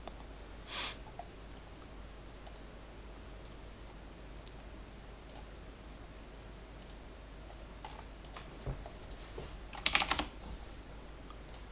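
Scattered clicks of a computer keyboard and mouse, with a short flurry of keystrokes about ten seconds in, the loudest moment.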